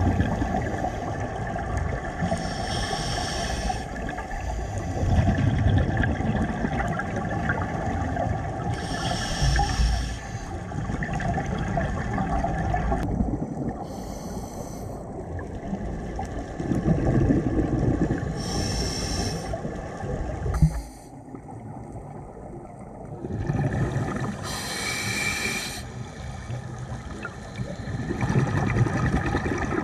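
Scuba breathing through a regulator underwater: a short hiss of inhalation about every five seconds, with low gurgling of exhaled bubbles in between.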